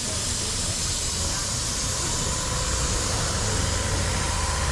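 Steady hiss of steam escaping from a coal-fired Darjeeling Himalayan Railway narrow-gauge steam locomotive standing in steam.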